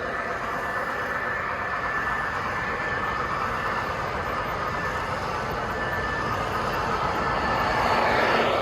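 Three-rail O-gauge model train running along the track with a steady rolling rumble and a faint whine, growing louder near the end as it comes closer.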